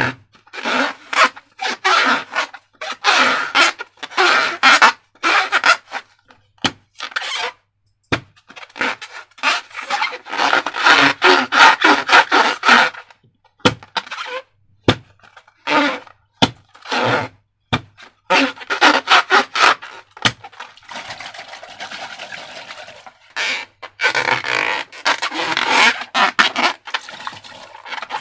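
Slime and rubber balloons being worked by hand: irregular bursts of squelching, scraping and rubbing, with a few sharp clicks scattered through.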